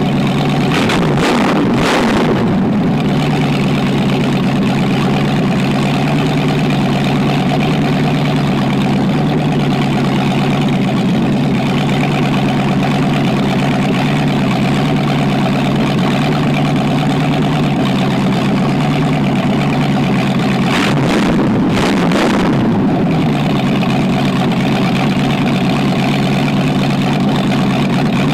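Freshly rebuilt engine on a run stand running just after its break-in. It idles steadily, with short revs near the start and again about 21 seconds in, while the carburetor is being adjusted.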